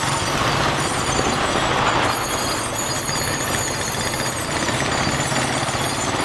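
Motorbike engine running steadily while riding in traffic, heard from on the bike as a fast, even chugging pulse.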